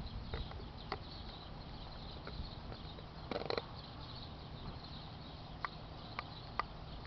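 Thunderstorm ambience: a steady low rumble with a few scattered sharp taps and a short louder clatter about three and a half seconds in.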